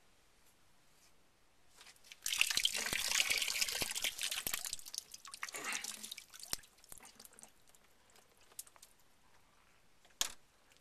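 Crackling, crinkling handling noise from hands working on plastic PEX tubing and its parts, lasting about four seconds. Faint ticks follow, then one sharp click near the end.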